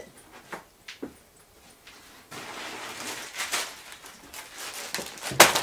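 Rummaging sounds as someone searches for items: a few light clicks, then rustling and shuffling, with a sharp knock near the end.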